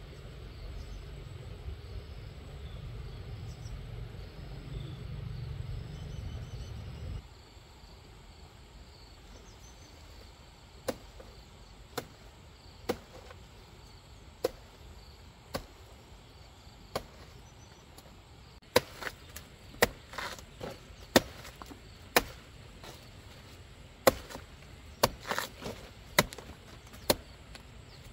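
A low rumble that cuts off suddenly about seven seconds in. Then sharp chopping strokes with a blade: a few spaced a second or more apart, then closer together, about one a second with some quick doubles, in the last third.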